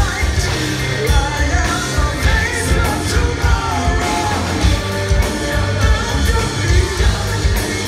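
Live progressive metal band playing: a male lead singer sings over pounding drums, bass, double-neck guitar and keyboards, heard from within the audience.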